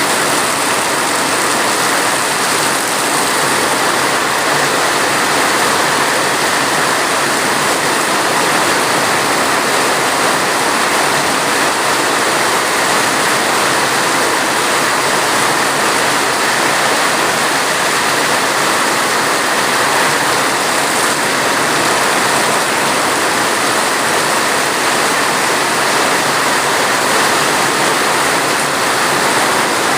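Steady heavy rain: a dense, even hiss with no separate drops standing out.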